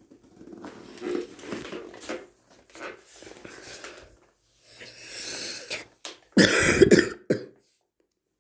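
A person coughing, with a loud run of several coughs about six seconds in.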